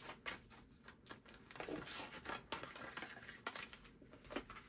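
Quiet rustling and crinkling of a paper receipt being handled and folded, with small scattered clicks and taps.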